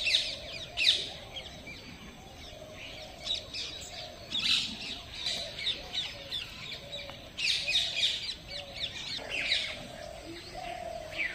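Several small birds chirping in the trees: quick, high notes that come in bursts several times, over a faint outdoor background.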